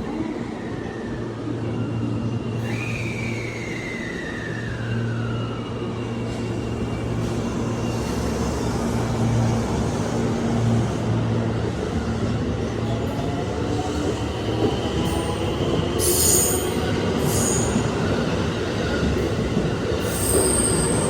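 JR 223 series 2000 electric multiple unit pulling out and accelerating: the traction motors hum, with a falling whine about three seconds in and tones that rise in pitch as it gathers speed. Rail noise runs under it, with short high squeals near the end.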